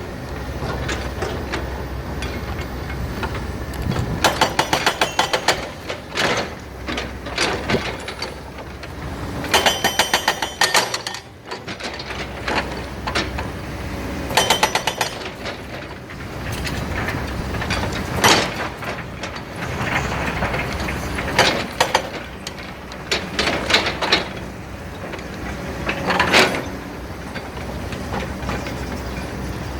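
Heavy excavator engine running steadily, broken by several bursts of rapid clattering rock impacts, the loudest a few seconds apart.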